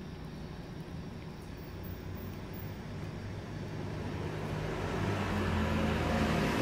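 A car's engine and tyres grow gradually louder as it approaches, loudest near the end, over a steady low hum.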